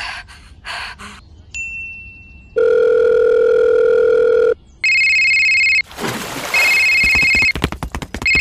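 Electronic telephone tones: a steady tone held for about two seconds, then a ringing tone that pulses three times, about a second each.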